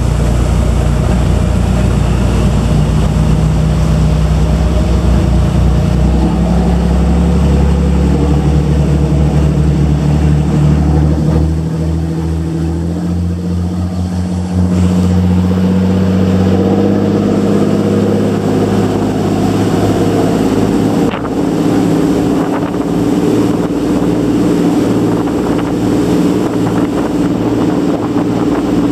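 Motorboat engine running under way, its note rising through the first half as the boat speeds up, then holding steady, over the rush of the wake and wind on the microphone. One sharp click about two-thirds of the way through.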